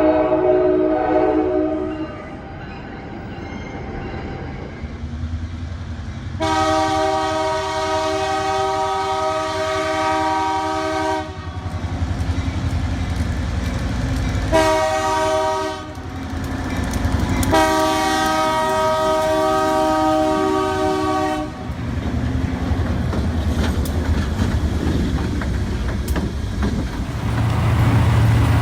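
Multi-chime locomotive air horn sounding a chord: the tail of one blast in the first two seconds, then a long blast, a short one and another long one, the grade-crossing signal. The train's rumble and clickety-clack of wheels run underneath and swell near the end.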